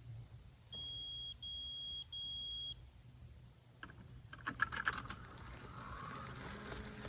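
Mammotion Yuka Mini robotic lawn mower giving three long, even, high-pitched beeps after docking for charging. About four seconds in comes a burst of clicks and rustling, and near the end a low steady hum starts.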